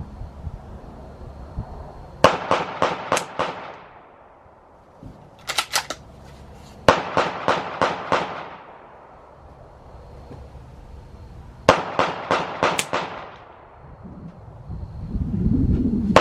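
Strings of rapid .22 rifle shots fired about four or five a second, typical of a semi-automatic: three strings of five to seven shots, with a tighter cluster of three or four sharper cracks between the first two. A low rumble of wind on the microphone rises near the end.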